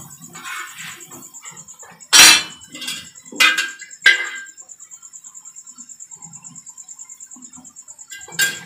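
A few sharp metal kitchen knocks and clatters at the stove, the loudest about two seconds in and others near three and a half, four and eight seconds. Under them runs a steady, rapid, high-pitched chirping.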